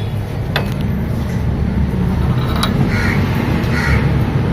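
A steady low mechanical rumble with a few light clicks.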